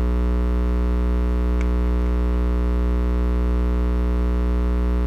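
Steady electrical mains hum with many overtones, loud and unchanging, with a faint click about a second and a half in.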